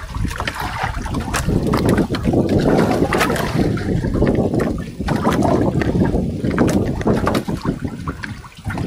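Water sloshing and lapping around a small wooden outrigger fishing boat, with a rushing noise of wind and water and scattered light clicks and knocks as handline and gear are handled aboard.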